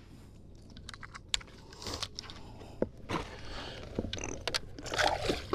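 Fishing gear being handled in a bass boat's storage compartment: an irregular run of small clicks, knocks and scrapes, with a few sharper clicks.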